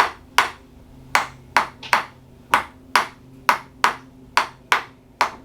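Handheld spring-loaded chiropractic adjusting instrument firing a series of sharp clicks, about two a second and often in close pairs, as it taps over the sacroiliac joints.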